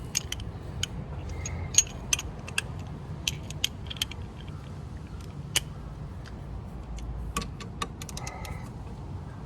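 Irregular sharp metal clicks and clinks of hand tools on the scooter's CVT drive-pulley nut as it is tightened by hand.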